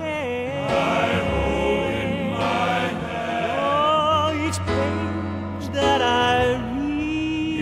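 Recorded southern gospel music: a male quartet singing in close harmony with instrumental backing.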